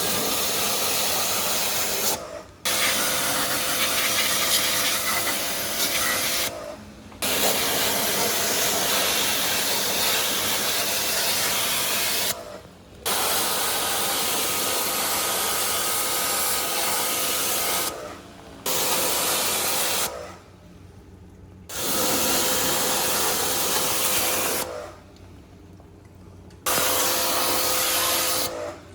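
Pressure-washer jet spraying water through a split air conditioner's coil during cleaning: a loud hiss with a faint pump whine, in spells of a few seconds that stop briefly between, seven in all.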